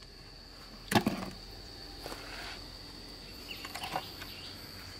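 A muddy plastic toy water gun set down on a wooden table with a sharp knock about a second in, followed by a few lighter knocks and clicks of toys being placed, over a steady high buzz of insects.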